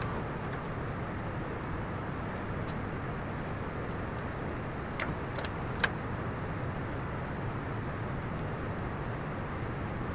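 Steady low rumble of an idling vehicle engine, with a few sharp clicks around the middle, the loudest about six seconds in.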